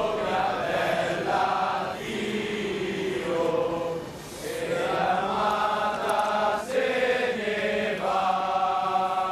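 A choir singing a slow melody in long held notes, phrase after phrase, with short breaths between phrases.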